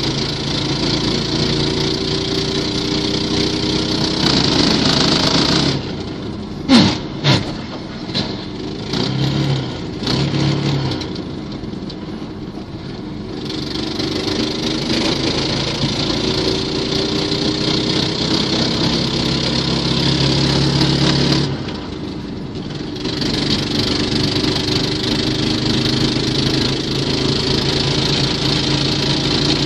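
6.5 hp single-cylinder walk-behind-tractor engine fitted in a VAZ 2109, running with its speed rising and falling. The note drops away twice, about six seconds in and again about twenty-two seconds in. A couple of sharp knocks come about seven seconds in.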